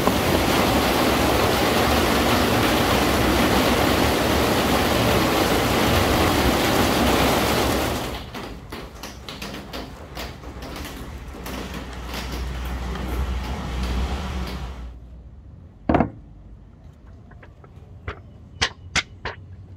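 A workshop power tool runs loudly and steadily, then winds down and stops about eight seconds in. After a quieter stretch with small clicks and a low hum, there is one sharp knock, then three or four lighter knocks near the end.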